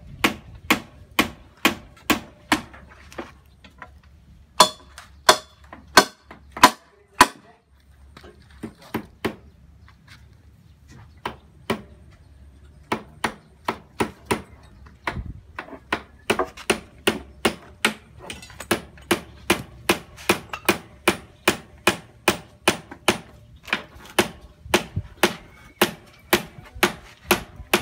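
Steady hammering: sharp, evenly spaced hammer blows at about two to three a second, thinning out for a few seconds about a third of the way through, then resuming at a quicker, steady pace.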